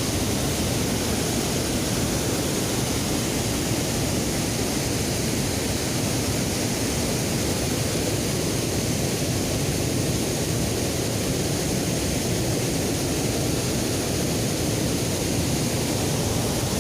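Rushing water of a river in flood, a steady, even roar of noise with no let-up.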